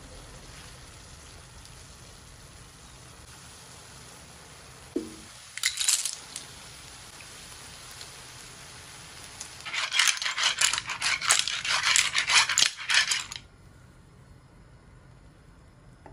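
Clams in their shells clinking against each other and against an aluminium frying pan as a spatula stirs them through pasta: a short clatter about six seconds in, then a longer run of quick clinks from about ten to thirteen seconds in. Under it, a steady low hiss from the simmering pan.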